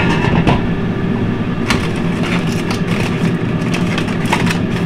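Aluminium foil crinkling and crackling in irregular bursts as a foil wrap is pulled open by hand, over a steady low hum.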